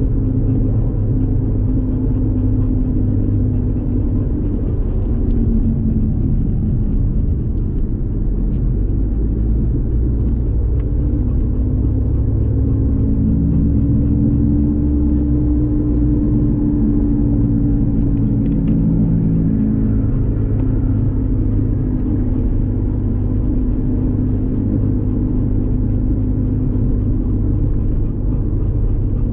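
Steady low rumble of a car's engine and tyres on the road, heard from inside the cabin while driving. About midway a humming tone rises and then falls in pitch.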